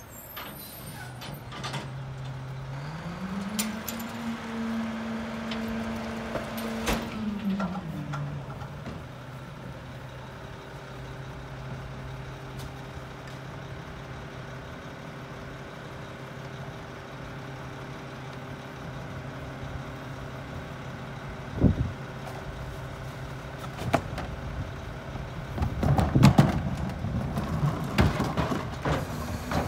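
Mack garbage truck's diesel engine revs up for about five seconds, then drops back to a steady idle. Near the end come a run of knocks and rattles as a plastic wheeled recycling cart is rolled up to the rear loader's hopper.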